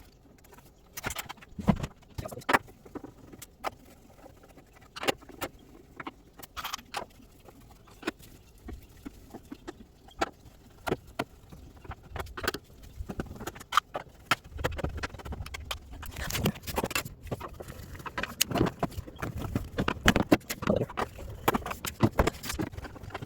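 Irregular clicks, taps and knocks of hand tools and loose washer parts being handled as the washing machine is taken apart, growing busier in the second half.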